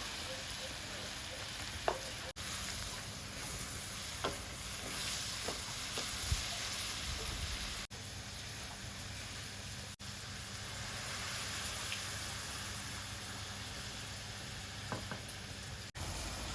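Food sizzling as it fries in hot oil, a steady hiss with a few faint pops. The sizzle breaks off for an instant four times.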